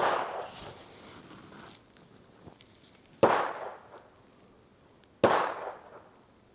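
Three gunshots, the second and third about two seconds apart, each with a short echoing tail.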